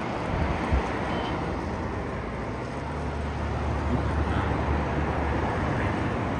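Street traffic on a busy multi-lane road, heard through an open window: a steady rush of passing cars, with a deeper low rumble from about three seconds in that lasts a couple of seconds. A short thump sounds just under a second in.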